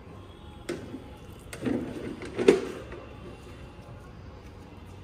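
A few dull knocks and handling sounds, the loudest a sharp knock about two and a half seconds in.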